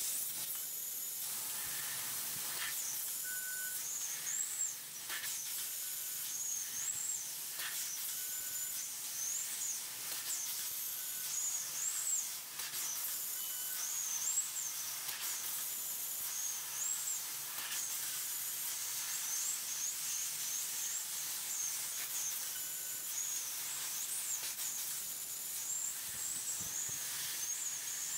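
12,000 W fiber laser cutting head cutting 16 mm stainless steel plate: a steady high hiss of assist gas jetting through the nozzle and kerf, with a high whistle that wavers in pitch and a few brief clicks as it cuts a series of small holes.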